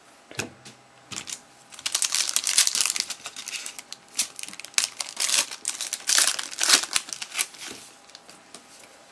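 Baseball trading cards being handled and flipped through by hand: card stock rustling and sliding, with quick clicks and snaps, busiest in the middle of the stretch.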